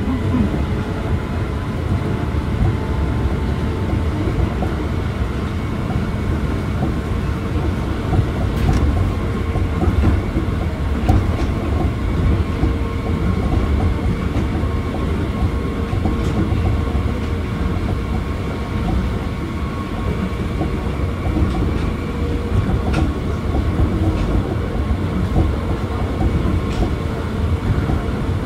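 Osaka Monorail 1000 series field-chopper-controlled monorail car running along its guideway. A steady, heavy rumble is heard with a few steady whining tones over it, and a handful of faint clicks come at intervals.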